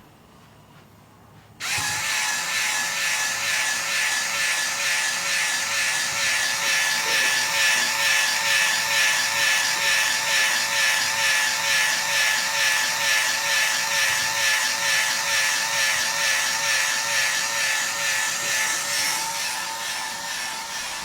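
Small electric motor and gearing of a fischertechnik model running: a steady whine with an even, fast pulse that starts suddenly about a second and a half in.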